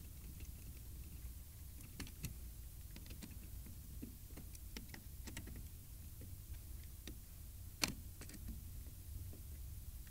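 A No. 2 Phillips screwdriver driving the mounting screws of an ATM card reader: faint, scattered clicks and scrapes of metal on metal, with one sharper click about eight seconds in.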